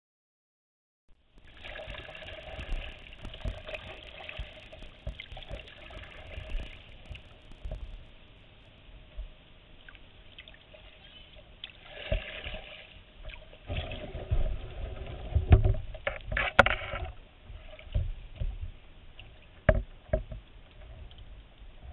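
Kayak paddling: the paddle dipping and splashing and water trickling off it, with irregular knocks and low thumps on the boat. It starts about a second in, and the splashing and knocks are loudest about two-thirds of the way through.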